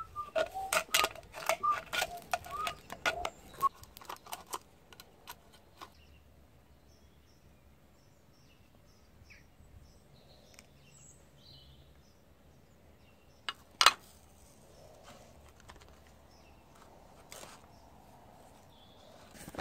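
Tin snips cutting a thin tin can into strips: a quick run of crisp metal snips and clicks with light ringing for the first few seconds. Then quieter, with faint birds chirping, and one sharp click about fourteen seconds in.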